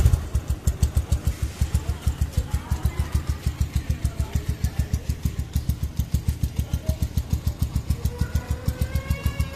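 Rusi Rango 150 motorcycle idling through its upgraded aftermarket exhaust, a steady deep bass pulse of about eight beats a second.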